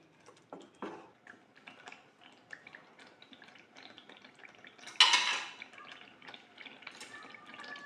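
A spatula stirring thick chilli sambal in a non-stick pan, with soft scrapes in the first second. The sauce then cooks with faint small pops and ticks, broken about five seconds in by one short, louder clatter.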